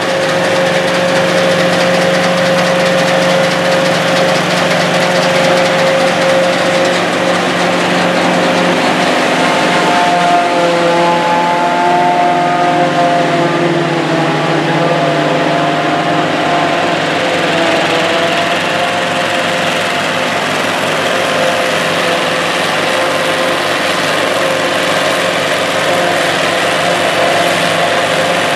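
Sperry New Holland Model 1880 self-propelled forage harvester running under load as it chops corn, a steady engine and machine drone. Partway through, a higher whine wavers up and down in pitch for several seconds.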